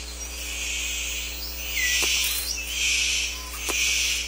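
Rainforest insects buzzing in pulses that swell and fade about once a second, with a couple of short falling bird chirps about two seconds in.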